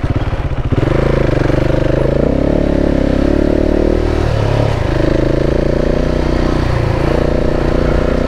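KTM 690 single-cylinder motorcycle engine running under way, its pitch dipping briefly about halfway through before it settles again.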